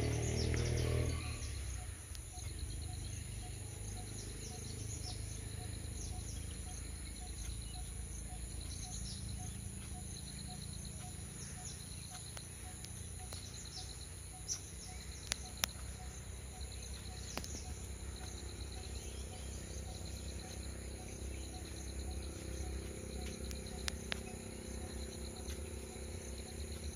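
Insects chirring steadily, a fast-pulsing high buzz with a slower, evenly repeated chirp beneath it, over a low background rumble. A louder low rumble dies away in the first couple of seconds, and a few sharp clicks come about halfway through.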